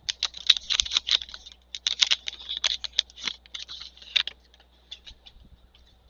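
Plastic trading-card pack wrapper crinkling and tearing open in a rapid crackly run for about four seconds, then a few light ticks as the cards are handled.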